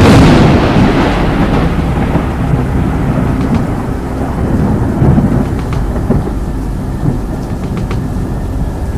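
A sudden clap of thunder that fades into a long low rumbling.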